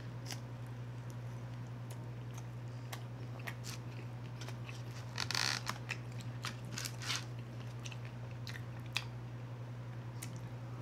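Close-miked mouth sounds of eating bone-in chicken wings: chewing, biting and wet smacks, with a louder burst about five seconds in. A steady low hum runs underneath.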